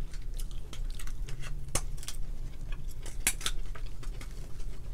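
Cooked crab shells being snipped and cracked with kitchen scissors: scattered sharp cracks and clicks, the loudest about two seconds in and a pair just after three seconds, over a low steady hum.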